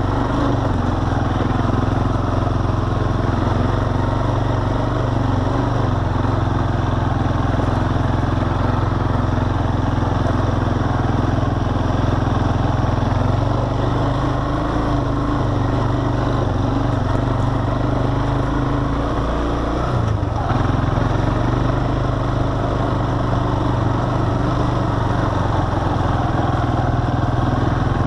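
ATV engine running steadily under light throttle as the quad rides along a dirt trail, briefly easing off about two-thirds of the way through before picking back up.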